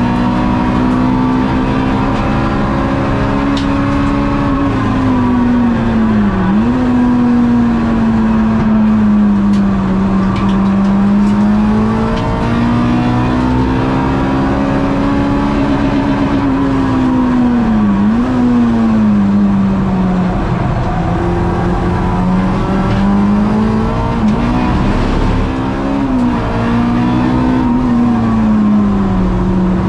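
Honda K-series four-cylinder race car engine running hard at high revs, its note slowly rising and falling, with a quick dip in pitch three times.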